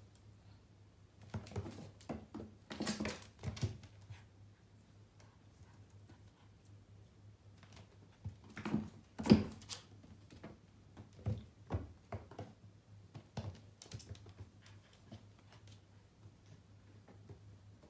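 Kitten's paws and claws pattering and scrabbling on a wooden floor as it pounces on a wand toy: quick clusters of light taps and clicks in three flurries, the loudest about halfway through. A faint steady low hum runs underneath.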